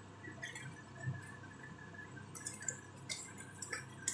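Plastic sachet of tamarind soup mix crinkling as its powder is shaken and spooned into a pot of soup, with small spoon clicks. The crinkling comes in short bursts, mostly in the second half.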